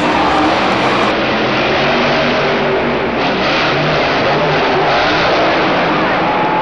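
Monster truck engine revving hard under full power, loud and steady.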